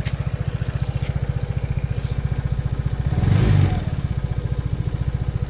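Vespa GTS 300 Super Sport's single-cylinder four-stroke engine idling with an even, steady pulse, swelling briefly louder about three seconds in. The owner of the new scooter is unsure whether it is running right.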